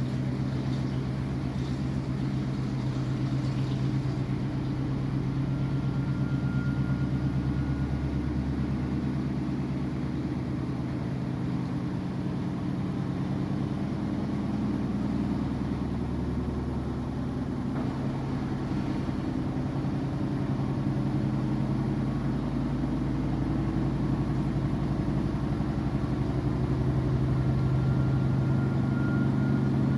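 Samsung washing machine running with a steady motor hum and rumble that swells and eases slowly, with a faint high whine coming in briefly twice.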